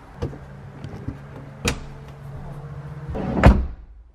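Sharp clicks and knocks as a van's door trim panel and the insulation behind it are handled and pushed into place, over a low steady hum, ending in a heavy thump about three and a half seconds in.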